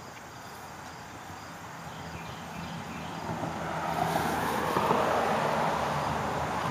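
A 1938 Farmall F-14 tractor's four-cylinder engine running steadily, growing louder from about halfway through.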